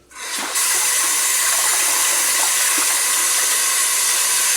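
Hot oil sizzling loudly as food goes into the frying pan, starting suddenly and then holding as a steady hiss.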